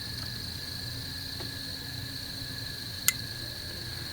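Crickets trilling steadily, over a low steady hum. A single sharp click comes about three seconds in.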